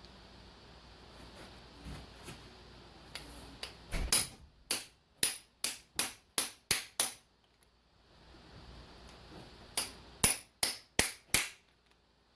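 Hammer blows on a driver seating a 1.5-inch stainless steel core plug into a 7.3 Powerstroke engine block: a run of about eight sharp metallic strikes, a pause, then about five quicker strikes.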